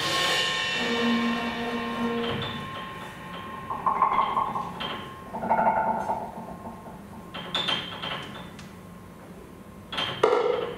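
Sparse, free-improvised music from piano, drum kit and modular synthesizer: struck notes that ring and decay, mixed with held tones that start and stop in short phrases.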